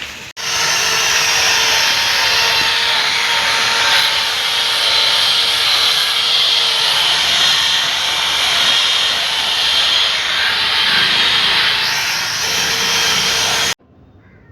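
A handheld power tool running steadily at full speed for about thirteen seconds, a high rasping noise over a faint motor hum, starting and cutting off abruptly.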